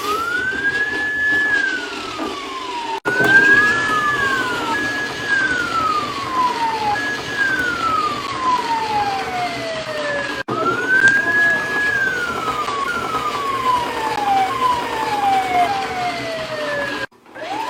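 Tanka toy police car's electronic siren sound effect: a tone that rises, holds and glides down in repeated sweeps. It cuts off and restarts twice, and stops near the end.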